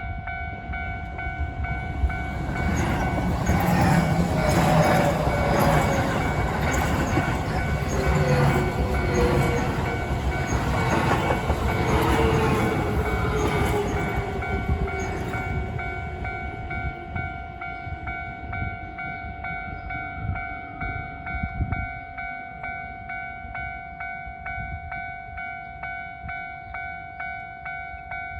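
Japanese level-crossing alarm ringing steadily in evenly repeated dings. An electric commuter train passes through it, its wheels clattering on the rails and its motor whine falling in pitch. The train fades after about fifteen seconds, leaving the crossing alarm ringing alone.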